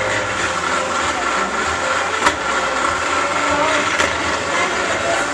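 Blacksmith's forge running with a steady noise, and two sharp metal clinks, one a little past two seconds in and one about four seconds in.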